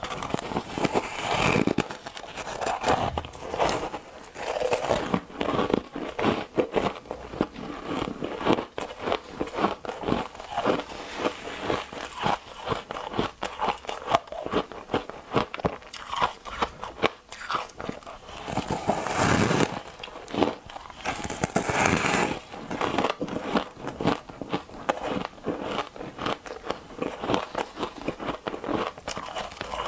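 Biting and chewing a soft, porous block of green ice: dense crackling crunches as it breaks and crumbles between the teeth, with a few louder bites about two-thirds of the way through.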